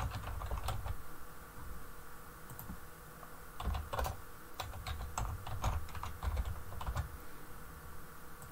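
Computer keyboard keys tapping in quick runs as a username and then a password are typed, with a thinner stretch of keystrokes in between.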